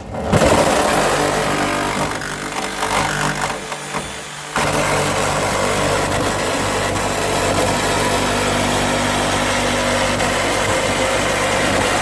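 A motor running steadily and loudly, dipping briefly, then holding a louder steady level from about four and a half seconds in.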